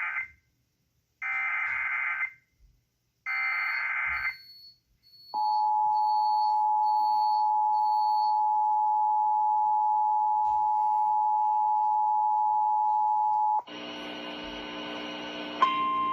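Emergency Alert System signals: three one-second screeching bursts of SAME digital header data, then the steady two-tone EAS attention signal (853 and 960 Hz) held for about eight seconds. Near the end a buzzy many-toned sound cuts in, joined shortly before the end by a single higher steady tone.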